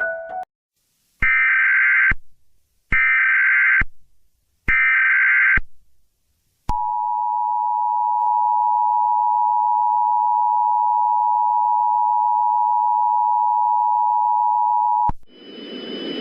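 Emergency Alert System activation: three short bursts of screeching SAME header data tones about a second apart, then the steady two-tone EAS attention signal held for about eight seconds before cutting off near the end. A chime melody ends just as it begins.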